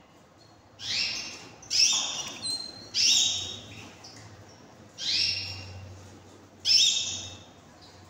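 Canaries calling: five loud, sharp calls, each fading away over about half a second, spaced one to two seconds apart.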